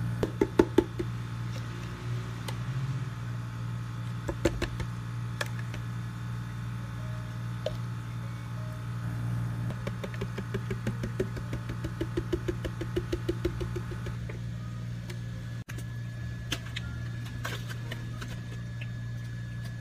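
Plastic cups and a plastic tub knocking and tapping on a counter as drinks are filled, over a steady hum of kitchen equipment that partly drops away about two-thirds of the way through.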